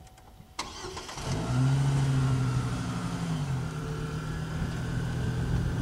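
Pickup truck engine running as it creeps forward, towing a trailer-mounted papercrete mixer into position. A single click comes about half a second in, then the engine note comes up and holds steady, easing off slightly about halfway.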